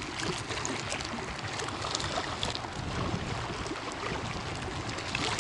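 Small waves lapping and splashing against a concrete shoreline, a steady wash of water with many small splashes.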